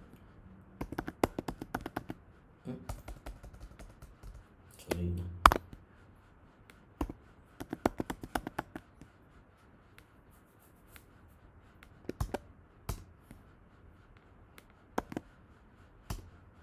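Computer keyboard typing: runs of quick key clicks, with short pauses between bursts and single keystrokes near the end.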